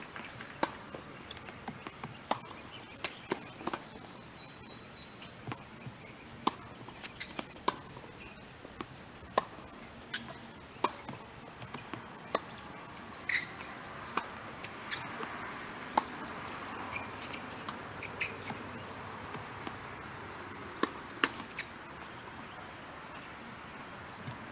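Tennis balls being struck by rackets and bouncing on a hard court: a string of sharp pops, irregular and about one a second, over a steady low hiss.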